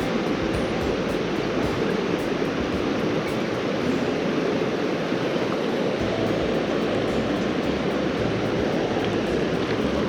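Mountain creek water rushing steadily over rocks in fast pocket water.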